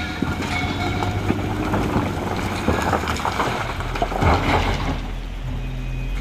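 A motor vehicle running, with a steady low engine rumble and irregular rattling and clatter.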